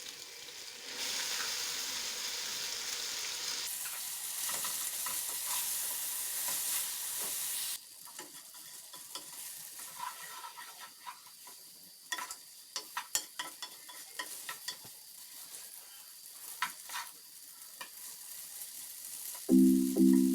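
Food sizzling in a frying pan, the sizzle growing louder a few seconds in and cutting off suddenly about eight seconds in; then a utensil stirring in the pan, with scattered clicks and knocks against it. Music with mallet-like notes comes in near the end.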